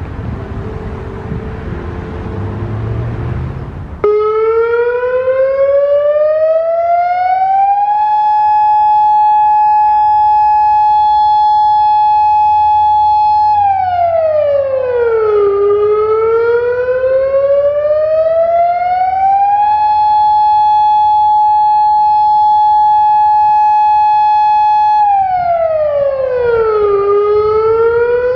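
Traffic noise, then about four seconds in a Federal Signal Modulator 6048 electronic siren cuts in loud, sweeping up in pitch, holding a high tone for several seconds, then falling and rising again in a slow, uneven wail. The uploader takes the odd cycle for a total malfunction of the siren.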